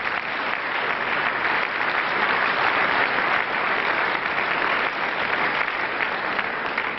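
Audience applauding, building over the first second or two and easing off near the end.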